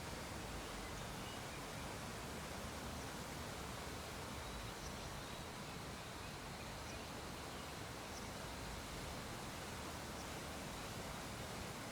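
Faint, steady hiss of background noise, with a few faint, scattered ticks every second or two.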